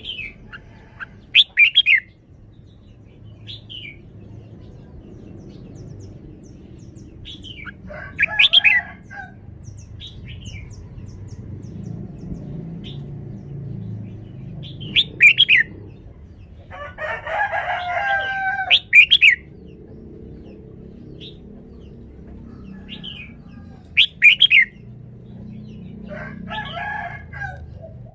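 Red-whiskered bulbul singing short, loud, sharp whistled phrases, one every few seconds with pauses between, over a faint steady background hum.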